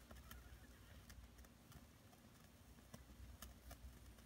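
Faint, irregular ticks and clicks from small flame-eater Stirling engines with glass pistons as a hand reaches to their flywheels to start them, over a low room hum.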